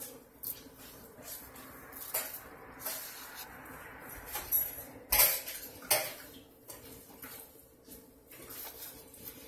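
Hands patting and pressing flounder fillets into a cornmeal coating on a plate, with scattered taps and knocks against the plate. Two sharper knocks come about five and six seconds in.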